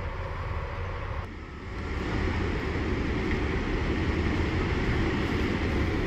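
Heavy military vehicles running, a steady low rumble with a haze of noise above it, growing louder about a second and a half in.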